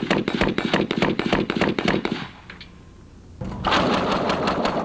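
7.62 mm HK21E machine gun firing a sustained automatic burst of rapid, even shots that stops about two seconds in. After a short lull, a loud stretch of dense noise fills the last second or so.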